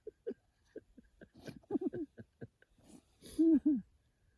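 A man's voice making short excited wordless sounds: a quick run of short notes about midway, then two louder drawn-out ones near the end.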